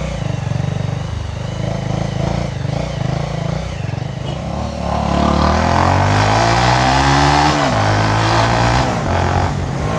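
Bajaj Avenger's single-cylinder motorcycle engine running under way. About halfway through it revs up, climbing in pitch for a couple of seconds, then drops suddenly and settles to a lower steady note.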